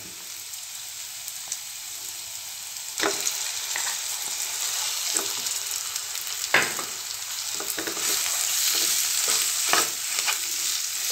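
Onion-tomato masala sizzling in a pan while mashed potato is stirred into it with a wooden spatula. The hiss grows louder about three seconds in, and the spatula knocks and scrapes against the pan several times.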